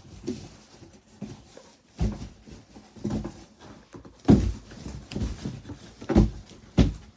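Irregular dull thumps and scuffs against a big cardboard box, about five knocks, the loudest a little past halfway.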